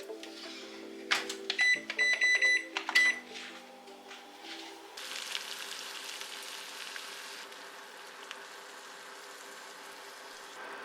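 A sharp clack, then a microwave oven beeping about five times in quick succession. A soft, steady hiss follows.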